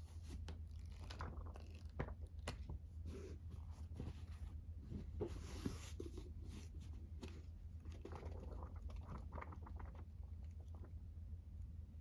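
Faint scattered clicks, taps and short rustles of small objects being handled, over a low steady hum.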